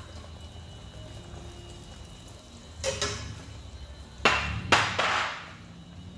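A metal utensil clanking against a stainless steel pot: a light knock about three seconds in, then two sharp clanks about half a second apart a little after four seconds, each trailing a brief splashy hiss.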